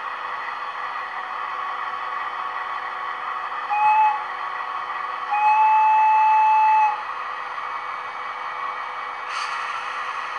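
ESU digital sound decoder in a Roco model of the FS D345 diesel locomotive, playing the real D345's diesel engine idling steadily through the model's small speaker. A short horn blast sounds about four seconds in, and a longer one of about a second and a half follows just after. A hiss joins in near the end.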